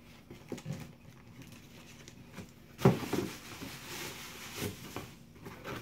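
Cardboard box being handled and packing paper rustling as it is pulled out of the box, with scattered small clicks and one sharper knock about three seconds in.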